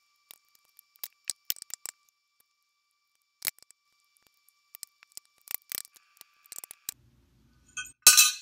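A metal fork clicking and scraping against a glass baking dish while picking up scraps of roast chicken, in scattered short ticks. Near the end there is one loud clatter, the fork being dropped into the glass dish.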